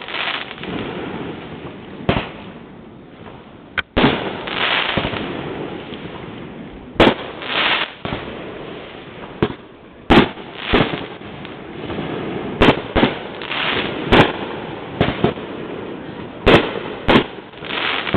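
Fireworks display: aerial shells bursting in a run of sharp bangs, about fifteen of them, coming closer together in the second half, with a rushing haze between the bangs.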